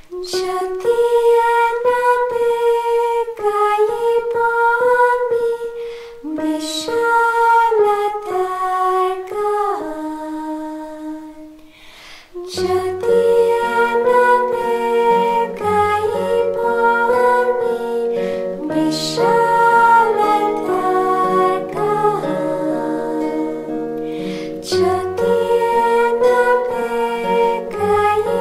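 Women's vocal group singing a slow devotional song in unison, at first over light plucked-string strokes. About twelve seconds in, sustained low chords and a bass come in beneath the voices.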